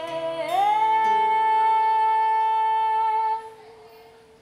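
Woman singing to her own acoustic guitar: her voice slides up into one long held high note, lasting about three seconds over low guitar notes, then fades out about three and a half seconds in.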